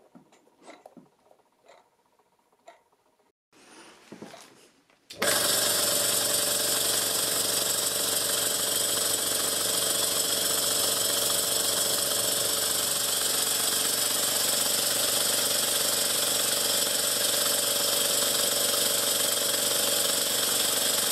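Stuart S50 single-cylinder model steam engine running fast on compressed air at its first start-up: after a few faint clicks as the valve is opened, it starts suddenly about five seconds in and keeps up a loud, steady, rapid running sound that stops just before the end.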